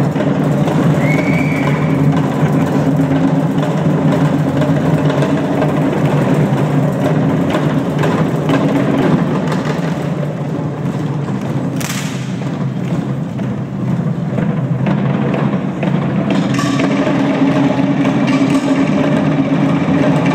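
Live Polynesian drum ensemble playing dense, rapid beats on drums for the dance, a little quieter in the middle.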